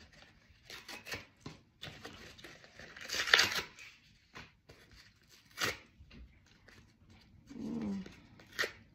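Corrugated cardboard being torn by hand in several short rips, the loudest about three seconds in.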